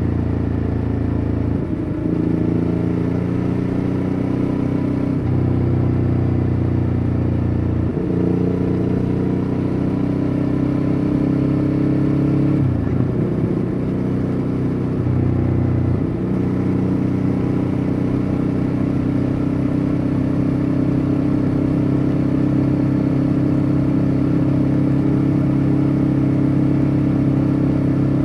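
A 2014 Ducati Hyperstrada's V-twin engine running under way. Its pitch shifts abruptly up and down several times in the first half, then holds steady at a constant speed.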